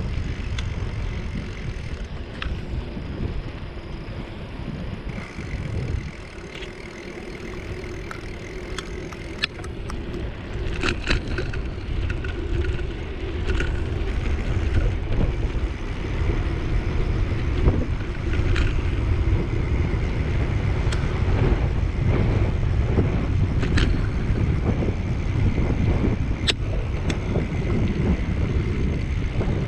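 Wind buffeting the microphone and bicycle tyres rumbling over rough, cracked concrete, with scattered sharp clicks and rattles from the bike.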